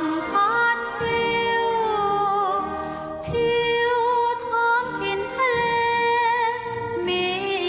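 Music: a slow sung melody with long held notes and vibrato over an accompaniment.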